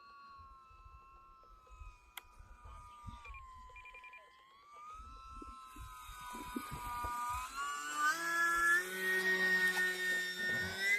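E-flite UMX Timber X's small electric motor and propeller whining in flight, the pitch wandering up and down with the throttle. From about halfway through it grows louder and higher-pitched. Gusts of wind rumble on the microphone.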